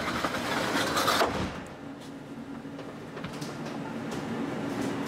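The door between the step van's cab and its kitchen being opened, a burst of noise lasting about a second. It is followed by a steady low machine hum.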